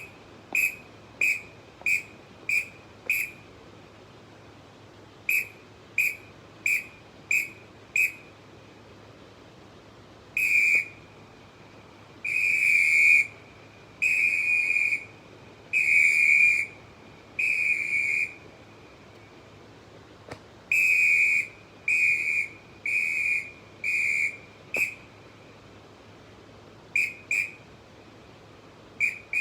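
ACME 58 large metal referee whistle blown in groups of blasts on one high, shrill note: first runs of short quick toots, then a set of five long blasts of about a second each, then more medium and short blasts, with two short toots near the end.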